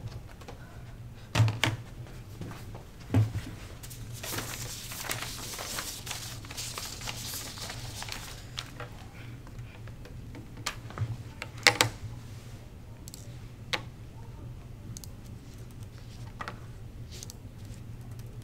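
Handling sounds in a small room: a few knocks and thuds, a stretch of rustling, and scattered light clicks from laptop keyboards, over a steady low hum.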